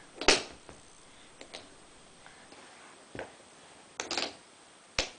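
Wooden toy blocks knocking and clacking against each other and the wooden train's pegs as they are handled. There is a sharp knock just after the start, a few light clicks, then a cluster of knocks about four seconds in and one more near the end.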